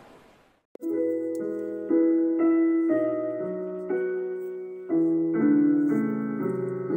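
Piano music: soft chords begin about a second in, a new chord struck every half second to a second and left to ring, after a faint hiss that fades out at the start.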